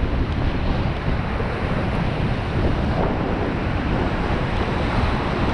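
Beas river whitewater rushing steadily around a raft, with heavy wind buffeting the microphone.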